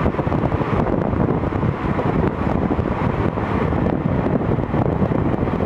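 Wind buffeting the microphone over the steady running of a train hauled by a 4-8-2 steam locomotive, heard from an open carriage window.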